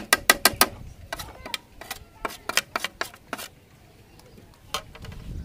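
A metal spoon clinking and tapping against a plate and a steel mixing bowl as spices are scraped off into the bowl: a quick run of sharp clicks in the first second, more in irregular clusters over the next few seconds, and one last click near the end.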